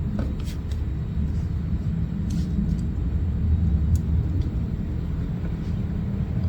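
A steady low rumble with a few faint, short clicks scattered through it.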